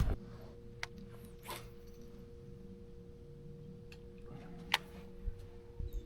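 A faint, steady two-note electrical hum, with a few light clicks and taps.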